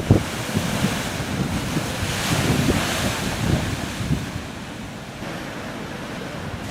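Rough sea surf: waves breaking and washing ashore, swelling about two seconds in, with wind buffeting the microphone.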